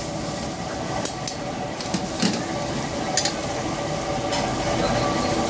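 Mutton sizzling in a karahi while a metal spatula stirs and scrapes it, with several sharp clinks of metal against the pan.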